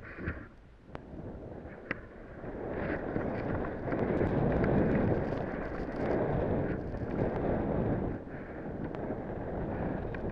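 Deep powder snow hissing and spraying under a rider carving downhill, with wind buffeting the camera microphone. The noise swells in waves, loudest from about four to eight seconds in, and eases off near the end as the rider slows.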